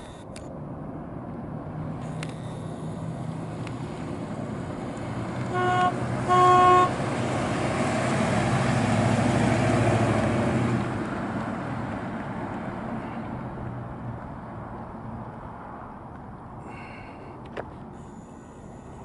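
1995 GMC Yukon with its 5.7-liter V8 driving past, the engine and tyre noise swelling as it comes near and fading away as it goes. About a third of the way in, its horn gives two quick toots, the second a little longer.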